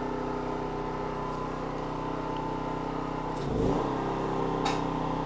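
QuickJack electric hydraulic pump running steadily as it lifts a car, running on generator power. About three and a half seconds in there is a brief low rumble and the hum settles at a slightly different pitch, and a single click follows about a second later.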